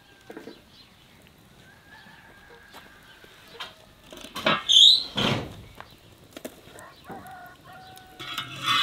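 Chickens clucking and calling, with a loud call just before the end. Around the middle come two loud knocks as a metal lid and firewood are set on a clay baking dish on the iron griddle over the fire.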